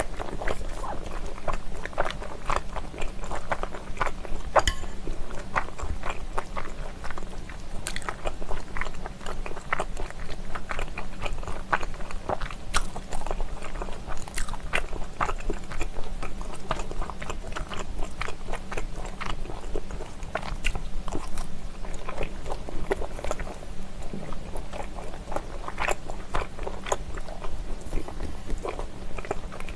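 Close-miked chewing and biting of spicy stir-fried pork skin, with many small clicks throughout.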